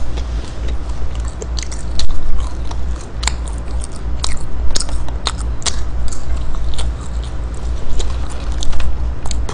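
Close-miked chewing of McDonald's fries and chicken nuggets, with many short wet mouth clicks through the whole stretch. A steady low hum runs underneath.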